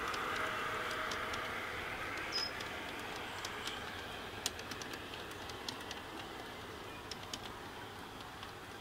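G-scale garden-railway coaches rolling over the track, a steady rumble with irregular clicks of the wheels over rail joints, fading as the train moves away. A short high chirp about two and a half seconds in.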